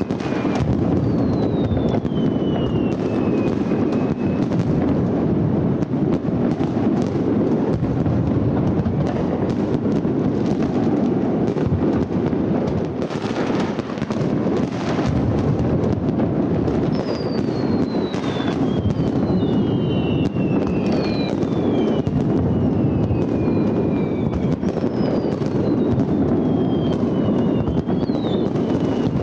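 Fireworks finale: a dense, unbroken barrage of aerial shell bursts merging into a continuous rumble, with high whistles gliding down in pitch several times, mostly in the second half.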